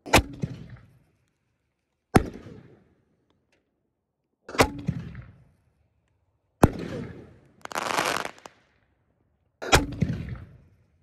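Black Cat Neon Diablo consumer canister shells firing: five sharp bangs about two to three seconds apart, each trailing off in echo, with a rushing hiss under a second long just after the middle.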